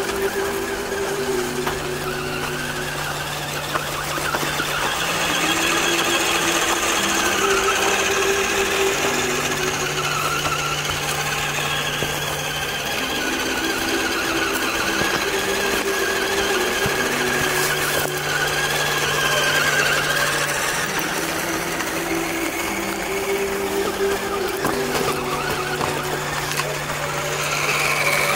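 Background music: slow held bass and pad notes that change every few seconds in a repeating chord pattern, with a higher wavering tone over them.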